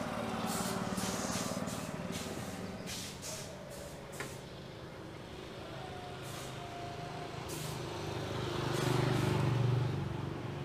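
Road traffic: a motor vehicle engine rumbles as it passes, growing louder about nine seconds in.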